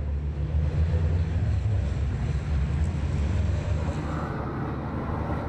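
Race trucks' heavy diesel engines running at speed on the circuit, a steady deep rumble.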